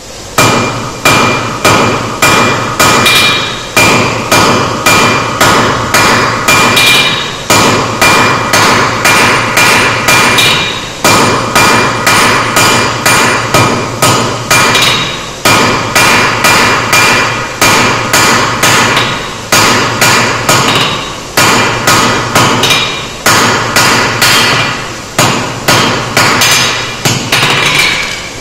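Blacksmith's hand hammer striking a red-hot steel bar on an anvil to forge it square, about two blows a second. Each blow rings with a metallic tone, and the runs of blows are broken by short pauses every few seconds.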